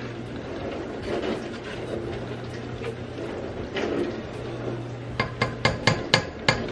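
A spoon stirring and scraping spinach around a metal pot over a steady low hum, then a quick run of about eight sharp metal knocks near the end.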